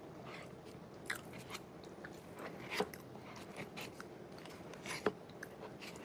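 Close-miked eating: chewing mouthfuls of chili cheese fries, with scattered small clicks and ticks as a plastic fork scoops in a paper bowl. The sharpest ticks come about three and five seconds in.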